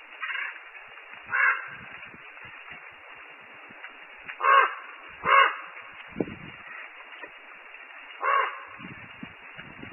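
A crow cawing: five single caws at uneven gaps, over a steady hiss of falling rain.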